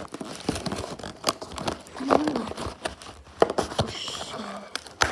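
Cardboard and plastic toy packaging being opened by hand: irregular clicks, knocks and rustling as the box is pulled apart, with a couple of short murmurs.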